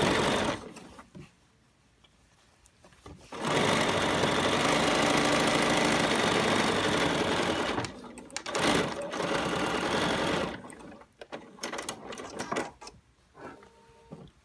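BERNINA 770 sewing machine stitching binding onto a fabric basket in several runs: a run that stops within the first second, a steady run of about four seconds, then two short bursts, followed by light clicks and handling near the end.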